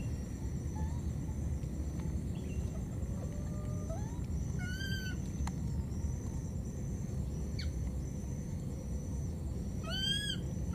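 Baby macaque giving two short, high-pitched, rising-and-falling calls, one near the middle and one near the end: a lost infant calling for its mother. A steady low rumble runs underneath.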